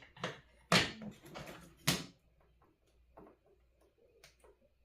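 A few sharp clicks and knocks, loudest about a second and two seconds in, then a run of faint ticks: small parts and tools being handled on a workbench while assembling an electronics kit.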